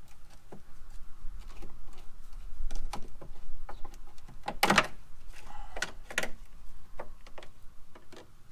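Trim removal tool prying at a plastic retainer on the Jeep's fender area: scattered plastic clicks and knocks, with one sharp snap about halfway through as the plastic piece pops loose.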